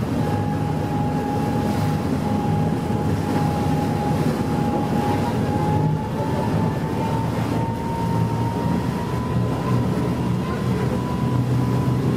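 Sightseeing boat's engine running steadily under way: a low drone with a thin whine above it that rises slightly in pitch from about halfway, over a rush of wind and water.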